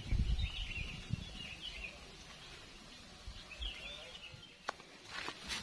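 Outdoor ambience with birds chirping in short calls. There is a low rumble near the start, and a few sharp clicks and rustles near the end.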